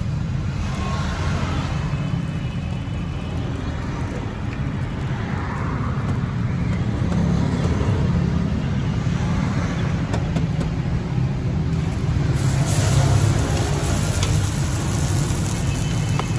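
Steady low rumble of road traffic with faint background voices; about twelve seconds in, an even hiss comes in over it.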